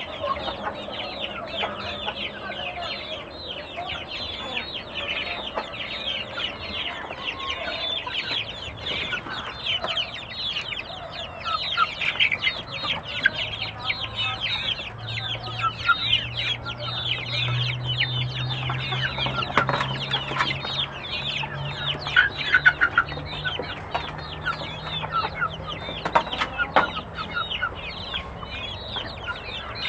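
A brood of young chickens in a wire cage, peeping constantly: many short, falling peeps overlap without pause, with some clucking from grown chickens.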